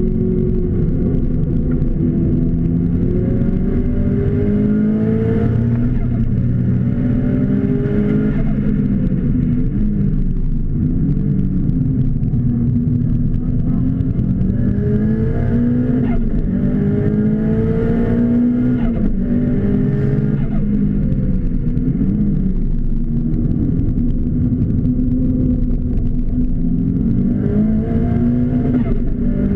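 Car engine heard from inside the cabin during hard track driving, its pitch climbing under acceleration and dropping back again and again, over steady road and wind noise.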